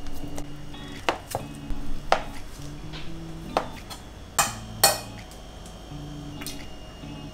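Chef's knife dicing luncheon meat on a stainless steel cutting board: about half a dozen sharp taps as the blade hits the metal, over soft background music.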